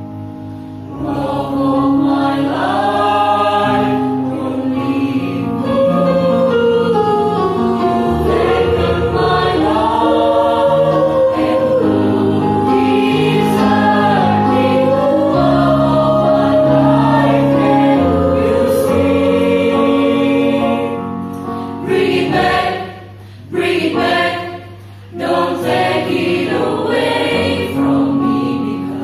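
High school choir singing in several-part harmony, with held chords and moving voice parts. About two-thirds of the way through the singing breaks into short, clipped phrases with brief gaps, then resumes.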